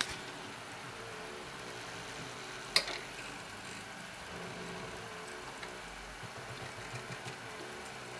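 Stepper motor, run in half-step mode by an A4988 driver, spinning an inline-skate wheel with a faint steady hum that wavers as a hand presses on the wheel to load it. One sharp click comes about three seconds in.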